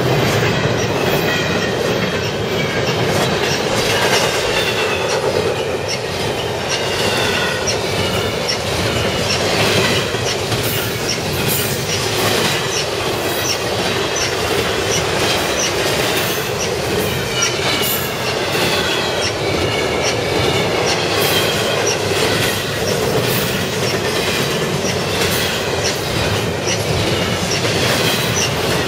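Double-stack intermodal freight train's well cars rolling past close by: a steady rumble of steel wheels on rail, with repeated high, wavering wheel squeal and regular clicks from the wheels passing over rail joints.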